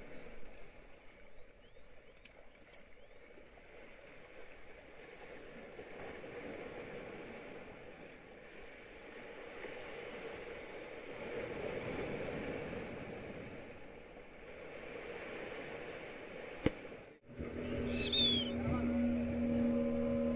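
Sea waves washing against the rocks of a jetty, swelling and easing. Near the end a click and a sudden break, after which a steady low hum comes in.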